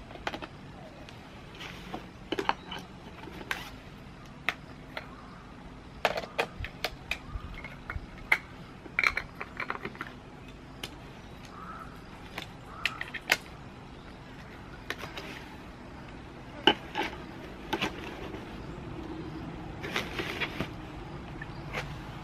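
Handling of a camera and lens: irregular clicks, taps and light rattles as a lens is fitted to the camera body and the camera is worked by hand, over a steady low hum.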